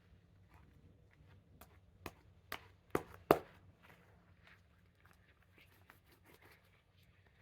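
Fluffy shaving-cream slime being stretched and squished by hand, giving four sharp pops a little under half a second apart around the middle, each louder than the last, over faint crackling.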